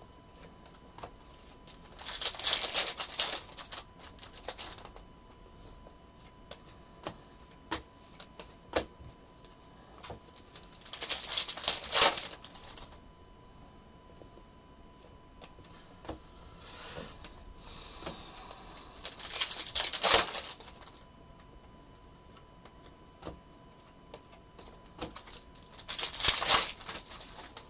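Bowman baseball card packs and cards being handled: four bursts of crinkling and rustling about two seconds each, with light clicks between.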